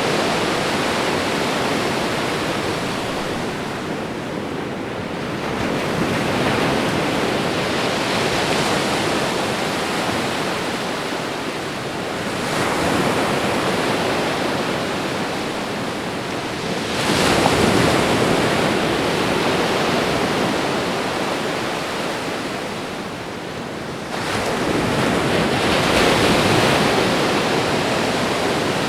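Ocean waves washing onto a shore in a steady rush of surf that swells and eases as each wave comes in, every five seconds or so. The biggest surge comes a little past the middle.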